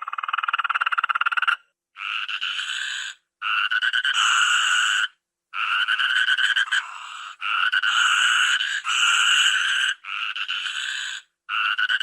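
Toucan giving a series of harsh croaking calls, each about a second long with a fast rattle inside it, repeated about eight times with short pauses between.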